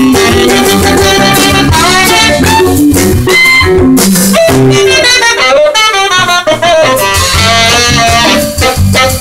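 Live jazz band playing: a saxophone runs a fast solo line over drums, bass and chording guitar or keys, with the low accompaniment dropping away for a moment midway.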